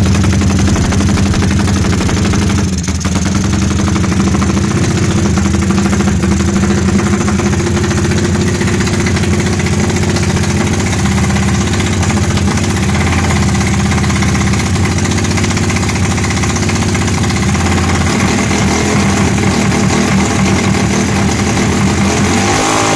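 A Honda Blade's single-cylinder four-stroke engine idling loudly and steadily through a BSS aftermarket exhaust, with the choppy, helicopter-like beat of a tuned open silencer.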